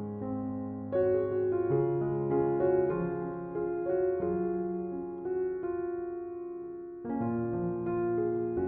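Background music: a soft piano piece, chords and melody notes struck and left to ring, with a fresh chord about a second in and again near the end.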